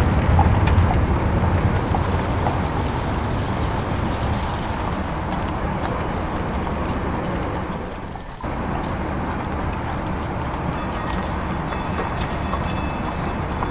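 Added street-ambience sound effects: a steady rumble of rolling wheels and traffic, as of a streetcar on a busy street. It dips and cuts back in about eight seconds in.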